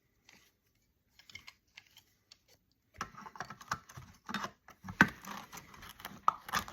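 Hard plastic and metal clicks and clatter of a piece of electronic scrap being pried and pulled apart by hand. A few scattered clicks at first, then after about three seconds a dense, irregular run of taps and rattles.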